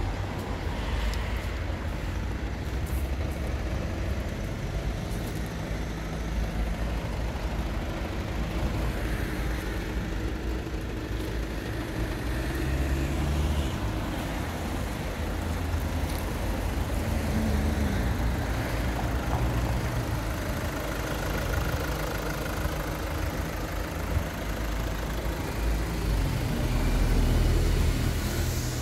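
Low, continuous rumble of motor vehicles, swelling about halfway through and again near the end as traffic passes.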